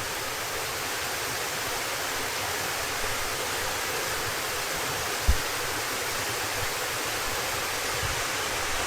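Small waterfall running with a steady rush of falling water, its flow low after a drought. A brief low bump about five seconds in.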